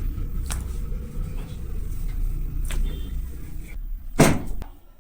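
Low rumbling handling noise with a few faint clicks, then a sharp thump about four seconds in.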